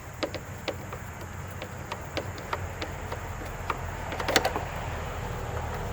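Scattered, irregular light clicks and taps of a hand tool working the screws of a small-engine fuel pump, with a short cluster of clicks about four and a half seconds in.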